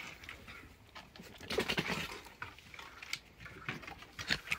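Red foxes eating treats right at the microphone: irregular short noisy animal sounds, loudest about a second and a half in, with a few sharp clicks.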